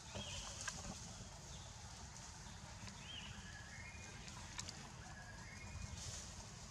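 Outdoor forest ambience: about four short chirping animal calls, some arching and some stepping up in pitch, with a few light clicks. A steady low rumble and a high hiss run underneath.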